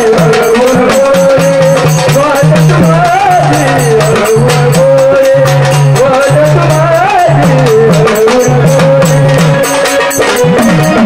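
Live Marathi gondhal folk music: a wavering lead melody over a repeating two-note bass line and fast, dense percussion with a rattling sound.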